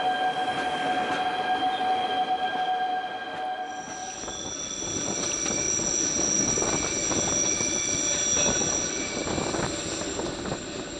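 Narrow-gauge electric train running, heard from an open carriage window: a steady whine at first, then, from about four seconds in, high-pitched wheel squeal over rattling wheels as the train takes a curve.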